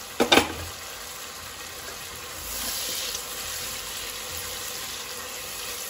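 Prawns cooking in hot oil and masala in a nonstick pan: a steady sizzling, bubbling hiss, with a brief louder sound just after the start. A spatula stirs through the pan, and the hiss grows brighter for a moment around the middle.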